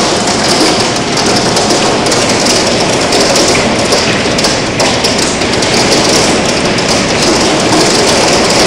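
Hailstorm: hail and heavy rain pelting down together in a loud, dense, steady roar of countless small impacts.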